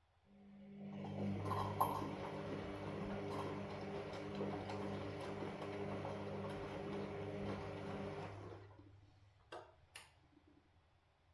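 Washing machine motor turning the drum in one burst of its wash cycle: a steady hum with light ticking for about eight seconds, winding down to a stop, followed by two sharp clicks.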